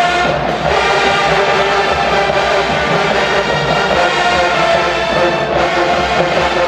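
College marching band playing loudly, a full brass-heavy sound.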